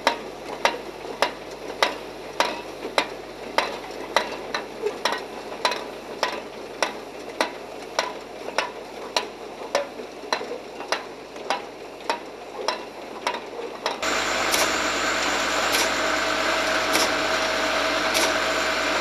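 Automatic aerosol can filling line running: a regular mechanical clack about every 0.6 s over a hiss. About three-quarters of the way through it gives way to a louder, steady machine hum with a steady tone and a few clicks.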